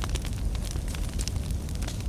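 Fire burning with irregular crackles and small pops over a steady low rumble.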